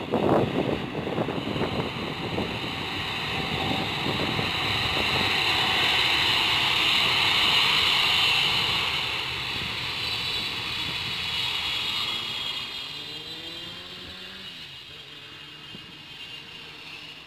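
Twin GE90 turbofan engines of a Boeing 777 freighter at high power on the runway: a roar with a high fan whine that swells to its loudest about halfway through, then slowly fades with the whine sliding down in pitch. Wind gusts on the microphone at the start.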